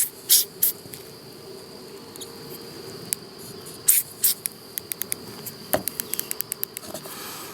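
Three short spurts of PB Blaster aerosol sprayed onto the contacts of an opened power window switch, then a run of small sharp clicks as the switch contacts are worked. A steady high insect chirp runs underneath.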